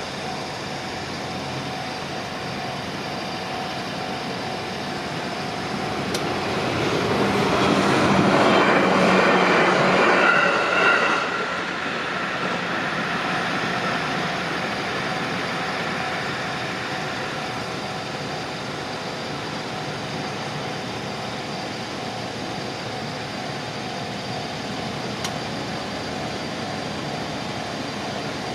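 Electric passenger train passing over a railway level crossing. It grows louder over a few seconds, is loudest around a third of the way in, then fades away.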